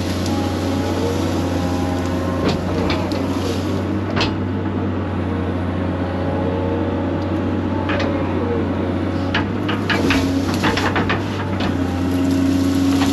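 Excavator running steadily with its hydraulics whining up and down in pitch as it works, and a scatter of sharp snaps and knocks, thickest about ten to eleven seconds in.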